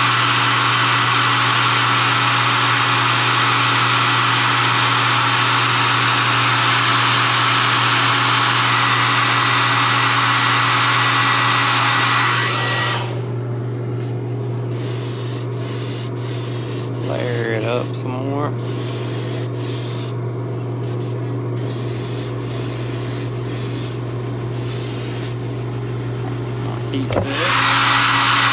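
Heat gun blowing steadily with a thin whine, drying airbrushed paint on a lure, and switching off about 13 seconds in. A steady low hum remains, with a few clicks and scratchy handling rubs. The heat gun starts again near the end.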